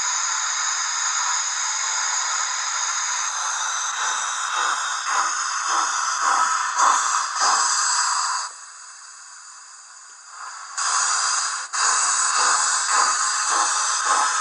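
Lenz O gauge BR86 model's DCC sound decoder playing steam locomotive sound through its small onboard speaker: a steady steam hiss, then even chuffs about twice a second from about four seconds in. The chuffing drops away for about two seconds past the middle, then resumes at the same rate.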